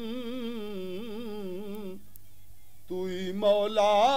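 A man's voice singing a naat, holding a long ornamented note whose pitch wavers up and down. The note breaks off about two seconds in, and after a short pause the next phrase starts, louder and rising in pitch.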